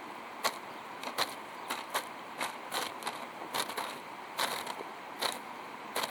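A series of short, sharp strikes, about two a second at an uneven pace, over a steady background hiss.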